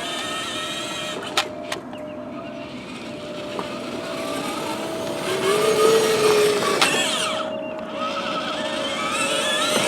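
Battery-powered ride-on toy Mercedes car driving, its electric motor whining and plastic wheels rolling over the ground, the motor pitch rising and falling midway. Two sharp clicks sound about a second and a half in.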